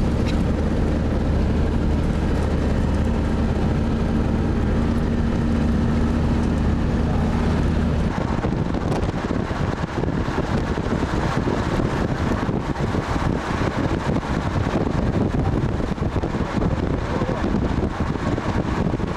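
Engine hum and road rumble heard from on board a moving road vehicle. About eight seconds in, the steady low hum drops out abruptly and rougher, gusty wind noise on the microphone takes over.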